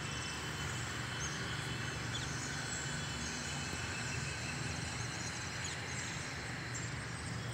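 Outdoor ambience of many small birds chirping over a steady low rumble.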